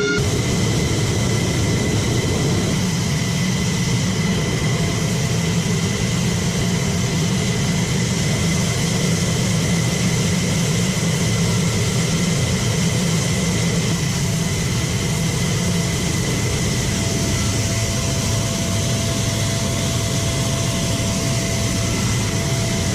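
F-16 fighter's jet engine running on the ground: a steady high whine over a low rumble.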